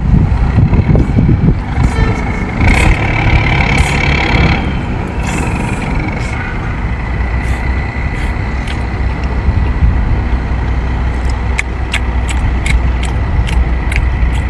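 A steady low motor rumble, with a hiss about three seconds in and a thin steady whine from about five seconds. A run of sharp clicks comes near the end.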